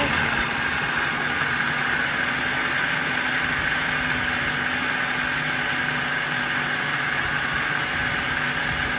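Electric food processor motor switched on and spinning up with a brief rising whine, then running steadily at speed with a constant whine, blending a thick cream and garlic mixture.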